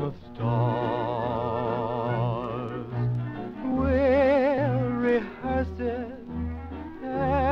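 1934 dance orchestra playing a sweet-band ballad on an old live broadcast recording: sustained wavering melody notes over steady repeated bass notes.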